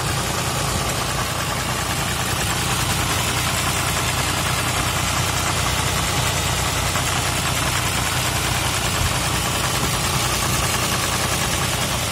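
Mercedes-Benz Sprinter turbo-diesel engine idling steadily, heard up close in the open engine bay.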